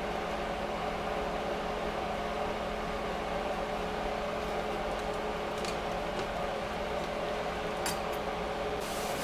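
Steady mechanical hum, with a few faint clicks about two-thirds of the way in.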